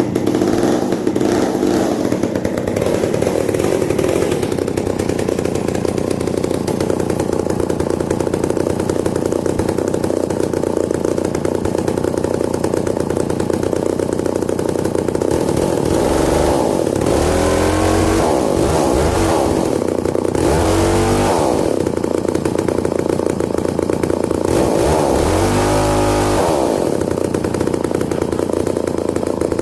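Vintage two-stroke chainsaw running steadily at idle, loud, and blipped up to higher revs three times in the second half.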